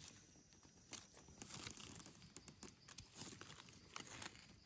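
Faint rustling and crunching of dry leaf litter and soil as gloved hands dig a wild mushroom out of the forest floor, then a knife scraping dirt off its stem base. The sound is a scatter of small irregular clicks and scrapes.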